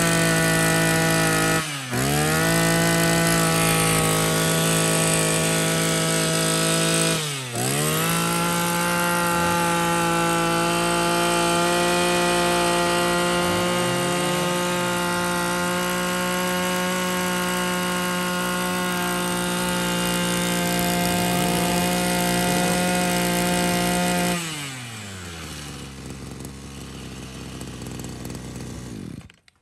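Small petrol engine of a brush cutter running at high throttle, twice dropping sharply and picking straight back up. Near the end it falls to a low idle, then cuts off suddenly.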